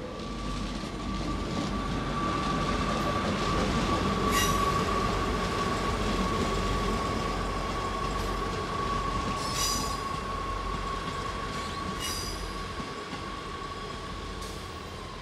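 Northern Class 158 diesel multiple unit moving slowly through the station. Its wheels give a steady high squeal over a low rumble, with a few brief metallic screeches, typical of wheel flanges on curved track.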